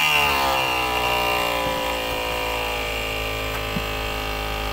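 Electric cab-tilt pump motor of a Mitsubishi Fuso Super Great tractor head running under load to lower the tilted cab. Its whine drops in pitch over the first second or so as it takes the weight, then runs steadily.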